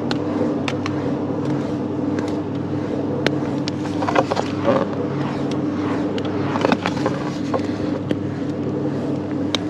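A 100 kW wind turbine running in a picking-up wind: a steady mechanical hum with several fixed tones, carried through the tower to a hammock lashed halfway up it. Scattered sharp clicks and brief fabric rustles come from the hammock and gear as it moves.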